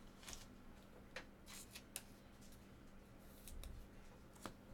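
Near silence, broken by faint, scattered clicks and short rustles of trading cards being handled, about eight in all.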